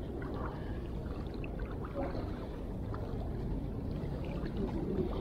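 Steady low rush of water lapping, with a few faint small clicks.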